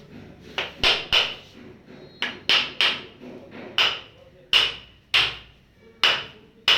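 A run of about eleven sharp slapping strikes, hands striking a body during a manual treatment. They come first in two quick groups of three, then singly every half second to a second.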